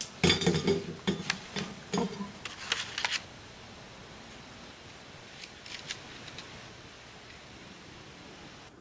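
A quick run of light clicks and taps, like things being handled and set down, for about three seconds, then a few faint ticks a little later over quiet room tone.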